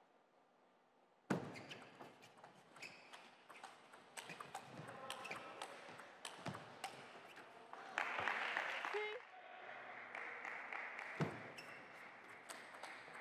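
Table tennis rally: sharp, quick clicks of the celluloid ball striking the bats and the table, starting suddenly after a second or so of near silence, with a louder burst of noise about eight seconds in.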